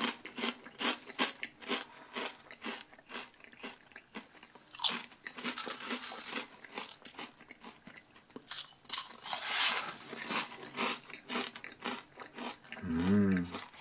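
Ridged-and-flat potato crisps (Lorenz Crunchips 2-Sides) being chewed: a long run of sharp crunches, two or three a second, with a couple of denser rustling stretches as more crisps are picked off the wooden board. A short hummed "mm" near the end.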